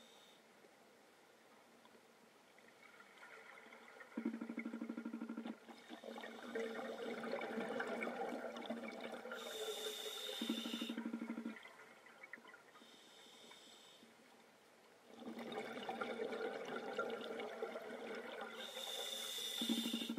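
A scuba diver breathing through a regulator underwater: two long stretches of bubbling exhaust, each with short buzzing bursts and a hiss from the regulator.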